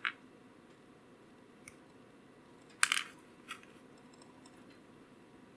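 A few short, sharp clicks of small plastic parts of a flashlight's push-button switch (plunger and spring) being handled between the fingers: one right at the start, a louder quick cluster about three seconds in and one more soon after, with near-quiet between.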